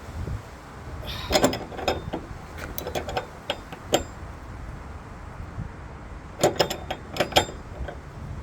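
Sharp metal clicks and clinks from a 22mm socket wrench and T45 spline bit tightening the loose strut-top nut on a VW Golf Mk1's front shock, coming in three short clusters.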